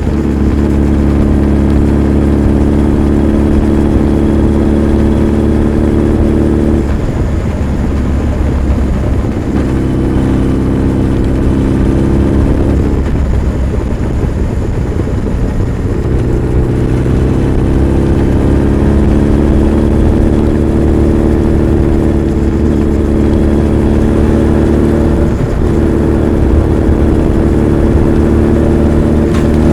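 Honda CB1300 Super Bol d'Or's inline-four engine and exhaust running under way. The note is steady, changes around seven seconds in, rises slowly through the middle, and changes again about 25 seconds in.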